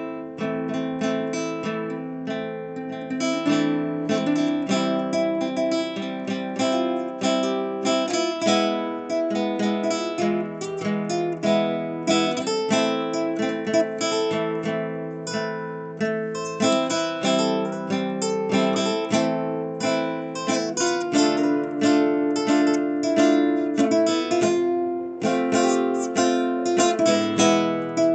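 Acoustic guitar playing an instrumental piece, a continuous flow of plucked notes and strummed chords.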